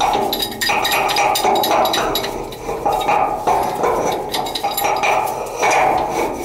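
Pipe wrench working a black iron riser into a fitting on top of a steel heating-oil tank: repeated metallic clinks and scraping as the jaws bite and the pipe turns in its threads.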